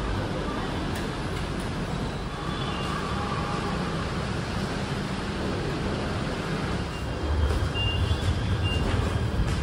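Steady vehicle rumble that grows louder and deeper over the last few seconds, with a few faint short high tones over it.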